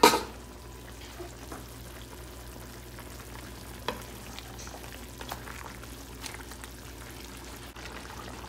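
A metal pan lid clatters once at the start as it is lifted off and set aside. Then pork and chicken adobo simmers in its soy-vinegar sauce in a stone-coated pan on a gas burner: a steady low sizzle and bubbling with a few small pops.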